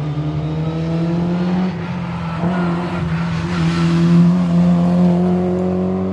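Historic rally car's engine accelerating hard at full throttle: the pitch climbs, breaks for a gear change about two seconds in, then climbs again, loudest about four seconds in.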